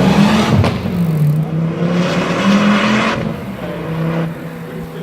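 Ford Focus RS Mk2's turbocharged five-cylinder engine under throttle, with a sharp crack about half a second in and a burst of hiss around two to three seconds in, fading steadily as the car moves away.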